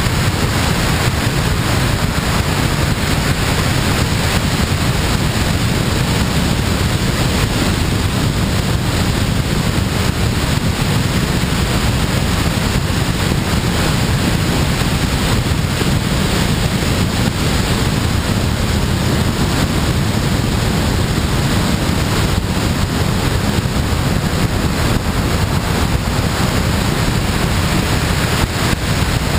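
Steady rush of airflow buffeting a wing-mounted camera on a glider in flight: loud, even wind noise with a deep rumble and no engine.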